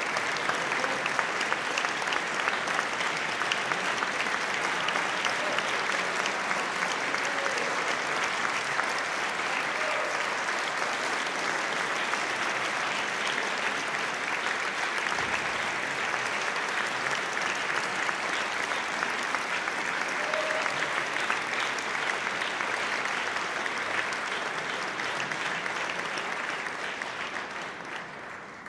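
Audience applauding steadily after a solo piano performance, the clapping thinning and fading near the end.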